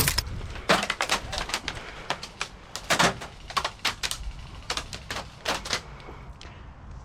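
Airsoft guns firing: scattered sharp snaps, single shots and short quick runs of two or three, some close and loud, others fainter.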